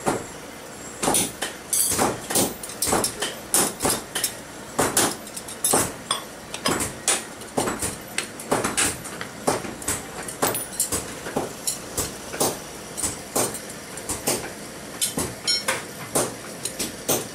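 Repeated hammer blows on steel at a forge anvil, irregular, about two a second, each with a short metallic ring.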